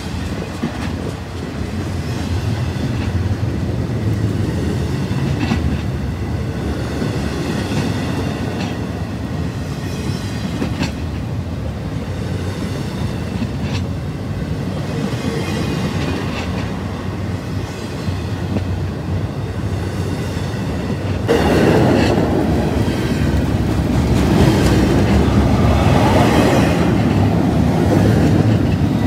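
Double-stack intermodal container train rolling past on its well cars: a steady rumble of steel wheels on rail with occasional clicks. It grows louder about two-thirds of the way through.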